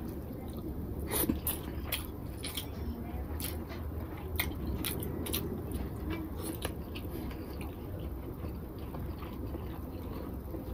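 Someone eating rice and egg curry by hand: fingers squishing and mixing the rice on a plate, then chewing a mouthful, with many short wet clicks and smacks scattered throughout. A steady low hum runs underneath.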